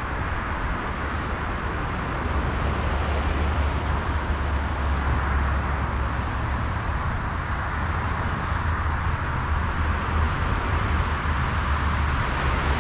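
Strong wind buffeting the microphone, a steady low rumble that grows heavier about two seconds in, over the even hiss of surf breaking on the beach in stormy weather.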